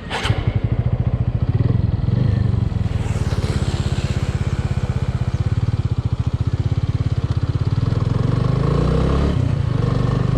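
Motorcycle engine running with a fast, even pulse that starts abruptly just after a sharp click at the start.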